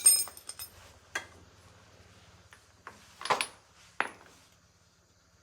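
Metal objects clinking and knocking, like tools being handled: a ringing metallic clatter at the start, a click about a second in, a scrape about three seconds in and a sharp knock about four seconds in, over a faint steady low hum.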